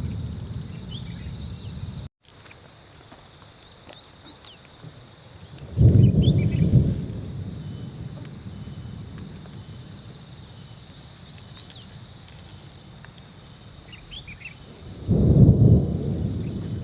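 Outdoor ambience: birds chirping now and then over a steady high insect drone, broken twice by a sudden low rumble that fades over about a second, about six seconds in and again near the end.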